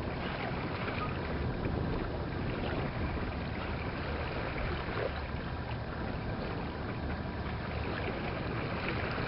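Steady rush of wind and water around a sailboat under way, with wind buffeting the microphone as a low rumble.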